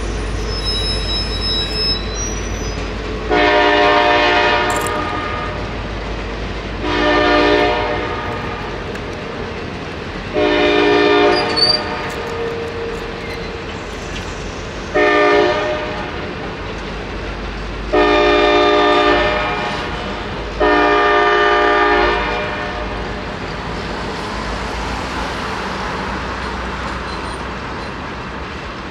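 Locomotive horn of the CSX F40 passenger units sounding six chord-like blasts; the fourth is short, the others last a second or two each. Underneath is the steady low rumble of passenger cars rolling past.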